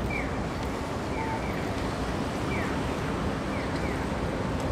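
Steady city street noise, heaviest in the low end, with a few short high chirps that slide down in pitch, roughly once a second.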